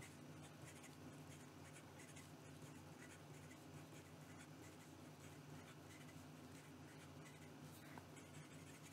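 Cross Bailey Medalist fountain pen's medium nib writing quickly on Clairefontaine paper: a faint, continuous nib-on-paper scratching of rapid repeated strokes.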